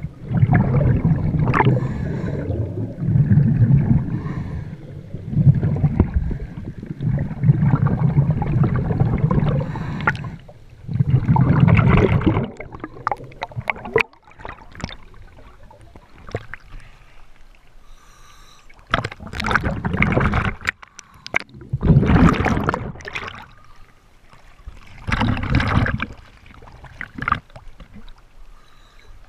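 Underwater bubbling and water rushing over the camera, with rising air bubbles, continuous and rumbling for the first dozen seconds, then a quieter stretch broken by separate bubbly bursts a few seconds apart.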